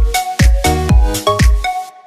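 Background music with a heavy, steady kick-drum beat and bright pitched notes, stopping abruptly shortly before the end.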